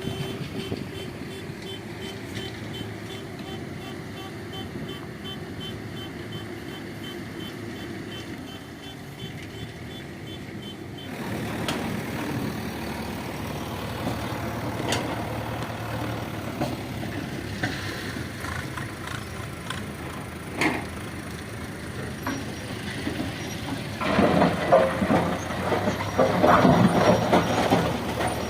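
Heavy diesel machinery running with a reversing alarm beeping about two to three times a second, which stops abruptly about eleven seconds in. Near the end comes loud, irregular clattering and rumbling of stone tipped from an excavator bucket into a truck bed.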